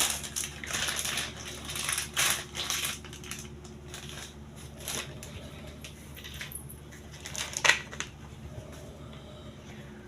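Plastic parts of a Butterfly kitchen wet grinder being handled and fitted together: irregular crackling and clicking, densest in the first few seconds, with one sharp click a little over seven seconds in.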